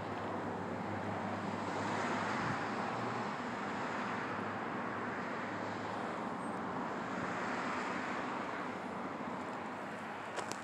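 A road vehicle passing by: a steady rush of engine and tyre noise that swells about two seconds in and fades near the end.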